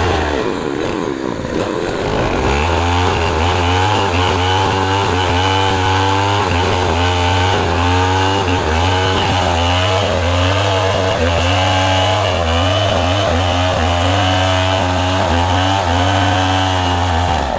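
Power tool running continuously and cutting wood, its pitch wavering up and down with the load.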